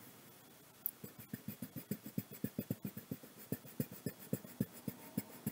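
Rapid back-and-forth coloring strokes on paper, about four to five a second, starting about a second in.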